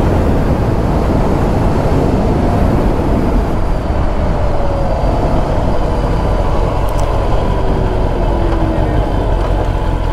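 Wind rushing over the microphone with a Kawasaki sportbike's engine under it while riding; the engine note falls as the bike slows from about 90 to 30 km/h.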